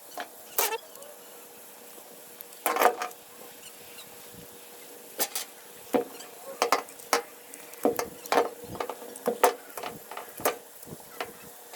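Irregular short scrapes and clicks of a bass being skinned and filleted by hand with a knife, over a faint steady hum.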